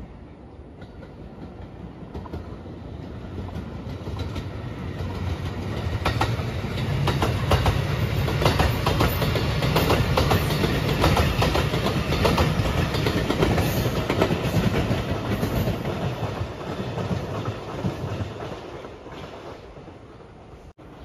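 Marine Liner rapid electric train passing close by, its wheels clacking over the rail joints. It swells over the first few seconds, is loudest in the middle with a quick run of clacks, and fades as it goes away near the end.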